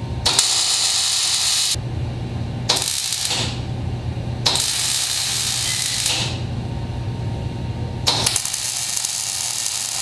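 Wire-feed (MIG) welder arc hissing and crackling in four bursts of one to two seconds each as a sheet-steel firewall seam is welded in, the tacks now being run into full beads. A steady low hum carries on between the bursts.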